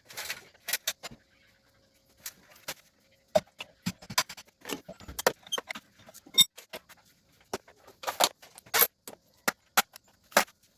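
Irregular sharp metallic clinks and knocks, about fifteen in ten seconds: tools and transmission parts being handled and set down during a teardown.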